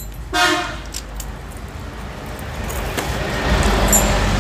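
A motor vehicle going past, its engine noise building over the last couple of seconds. A short pitched tone sounds just under half a second in.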